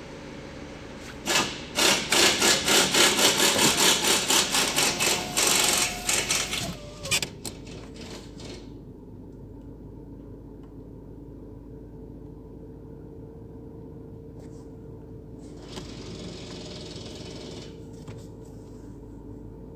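Rapid, rhythmic mechanical knocking, loud, from about a second in until about seven seconds in, then a steady low hum with a faint held tone.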